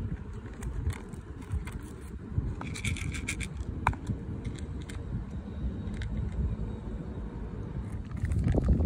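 Cat eating dry kibble from a bowl: small crisp crunching clicks and scrapes, a busier patch about three seconds in, over a low steady rumble that grows louder near the end.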